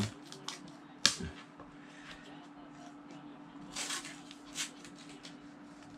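Paper tape being pulled from the roll and pressed down by hand onto a subwoofer cabinet: a sharp click about a second in, then a few short rasps near the four-second mark.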